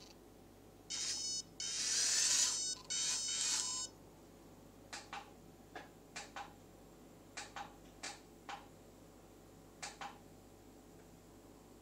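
Electronic sound effects from the Turbo Racing C50 RC semi truck's built-in speaker: three short electronic tones in the first four seconds, the middle one longer with a hiss. Then a run of about a dozen short clicks as the truck's lights are switched on.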